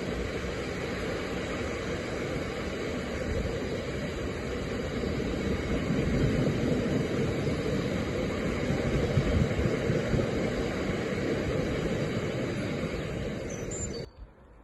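Diesel train passing, a steady rumble that grows louder about six seconds in, then cuts off suddenly near the end.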